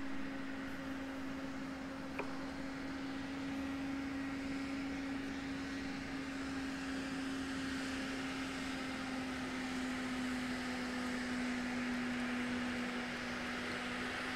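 Steady low machine hum holding one pitch, over a faint hiss, with a single light click about two seconds in.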